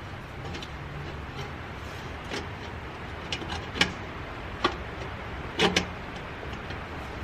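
Several sharp knocks and clanks over a low steady hum, the loudest a double knock about two-thirds of the way through: exhaust pipe sections and tools being handled and fitted during an aftermarket exhaust install.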